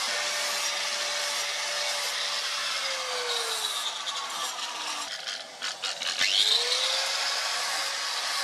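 Angle grinder with a sanding disc grinding the flat of a forged steel knife blade. The motor pitch sags under load about three seconds in. A scraping, clattering stretch follows, then about six seconds in the pitch drops away and quickly climbs back to full speed.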